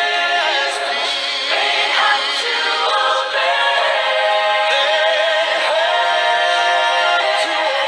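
Background music: a song with sung voices in harmony, holding and bending long notes.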